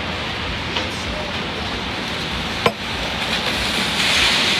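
Steady rain and traffic noise on a wet city street. A car's tyres hiss past on the wet road near the end, and a single sharp tap sounds a little over halfway through.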